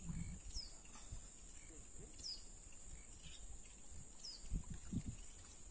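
Faint outdoor ambience: a steady high-pitched insect drone, with a short falling bird chirp about every two seconds.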